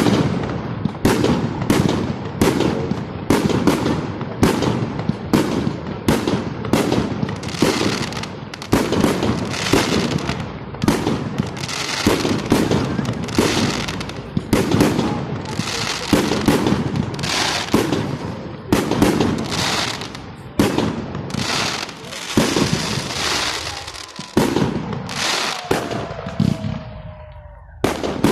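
Fireworks salute shells bursting in quick succession, about two sharp bangs a second. Near the end the bangs thin out and a short falling whistle is heard.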